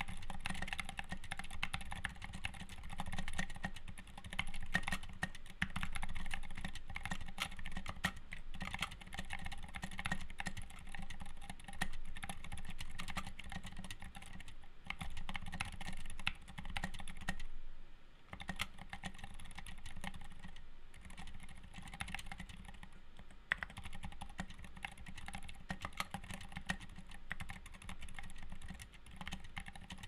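Typing on a RAMA M60-A custom 60% mechanical keyboard fitted with Zilent V2 silent tactile switches, which have silicone dampeners inside: a continuous patter of damped keystrokes, with a short pause about halfway through.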